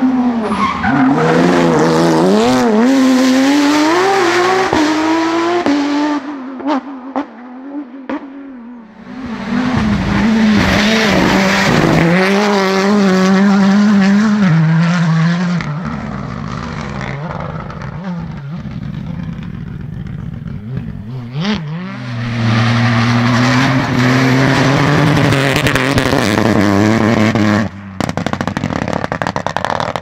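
Rally cars driven flat out one after another, engines revving hard with the pitch rising and falling through gear changes and lifts. Near the end one car's engine note cuts off and is followed by rapid crackling.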